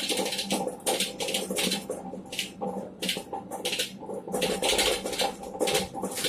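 Wet grinder running: a steady motor hum, with the grinding stones clattering and scraping in the drum in repeated bursts about twice a second.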